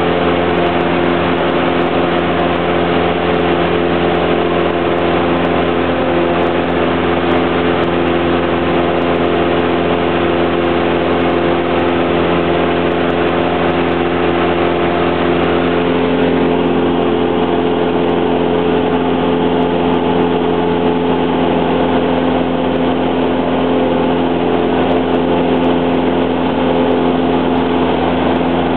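Cessna 172's piston engine and propeller droning steadily, heard inside the cabin in flight. The engine's tone shifts slightly about halfway through.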